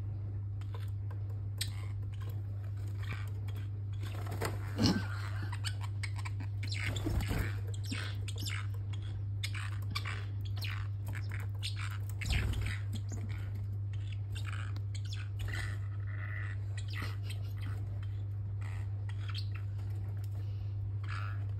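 A parrotlet unrolling a kitchen paper towel roll: crinkly paper rustling and short scratchy clicks as the bird tugs and the roll turns, with a few heavier knocks, over a steady low hum.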